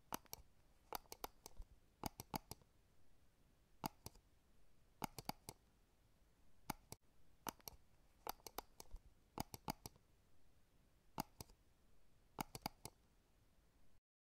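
Faint, sharp clicks in small irregular clusters of two to four, a cluster every second or so, cutting off suddenly near the end.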